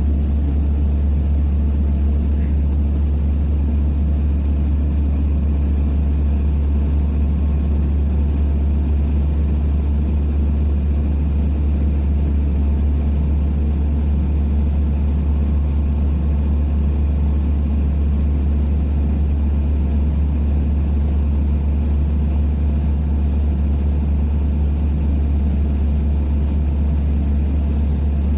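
Steady engine and road rumble inside a NABI 45C-LFW city bus, with a strong low hum that holds level throughout.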